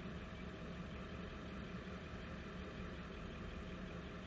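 Engine idling steadily, an even low hum with no sudden sounds.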